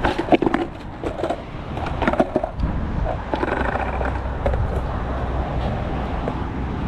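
Skateboard on rough asphalt: the board's deck and wheels clack and smack down several times in the first couple of seconds as a shove-it is tried, then the wheels roll along with a steady rumble.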